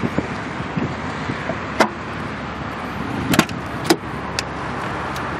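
A few sharp clicks from a Daewoo Nexia's rear door handle and latch as the door is opened, two of them close together about three and a half seconds in, over a steady background rush.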